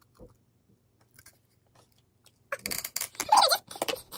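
Slime being stirred with activator in a sped-up clip: after near quiet, a dense run of quick clicks and crackles starts about two and a half seconds in.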